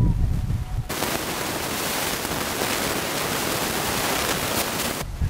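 A loud, even hiss like static starts abruptly about a second in and cuts off suddenly near the end. Before it there are low, dull thumps.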